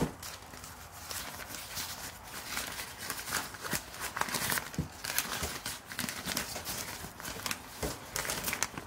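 Rustling of a folded thin fabric drawstring bag being unfolded and shaken out by hand, in short irregular rustles.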